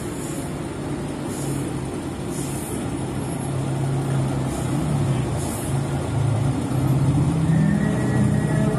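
Coach bus diesel engine running as the bus pulls slowly past, its low drone growing louder as it comes close.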